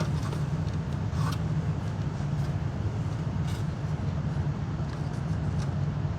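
Steady low background hum, with a few light clicks of plastic vacuum parts being handled and fitted.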